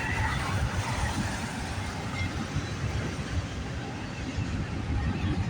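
CN intermodal freight train's container cars rolling past, a steady low rumble of steel wheels on the rails.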